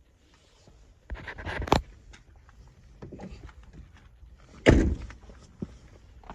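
A Chevrolet Express van's door being handled: a quick cluster of knocks about a second in, then a single heavier thud near the middle.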